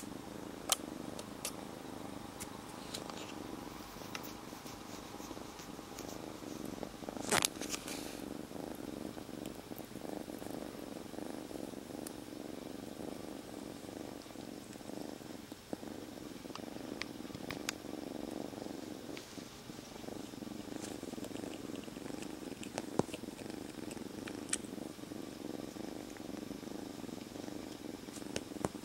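Black-and-white kitten purring loudly and steadily, close up, with a few sharp clicks, the loudest about seven seconds in.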